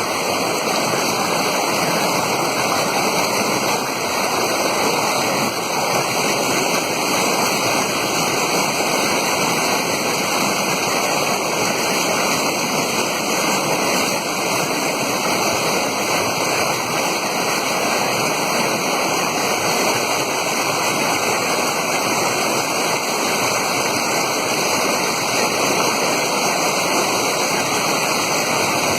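Steady, unbroken rush of water pouring and churning, as in a natural hydromassage pool fed by falling water.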